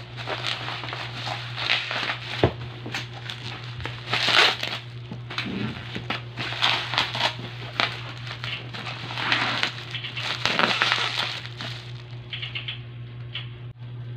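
Plastic packaging and bubble wrap crinkling and rustling in irregular bursts as a parcel is unwrapped by hand, with one sharp click about two and a half seconds in. A steady low hum runs underneath.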